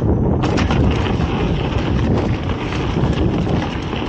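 Wind buffeting the microphone as a mountain bike rides along the trail: a steady, loud rumble with scattered short rattles from the bike over the ground.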